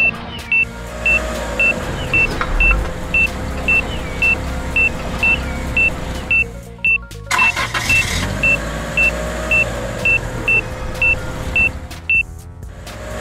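Cartoon warning beeper on an excavator's flashing beacon, sounding short high beeps at a steady rate of about two a second in two runs with a pause about halfway, over background music.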